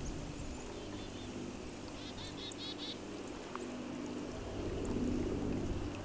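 Creek water running and gurgling steadily, swelling a little near the end. A bird sings a quick run of about six high notes a couple of seconds in.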